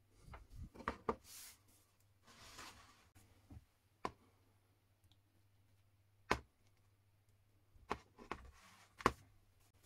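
Wooden blocks and a corded drill being handled and set on a wooden workbench: scattered knocks and clicks, with two short rustling scrapes in the first three seconds and a faint steady low hum underneath.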